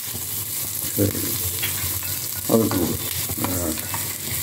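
Whole spices, peppercorns, cumin, toor dal, coriander seeds, garlic and curry leaves, sizzling steadily in hot ghee in a small pan while a wooden spatula stirs them.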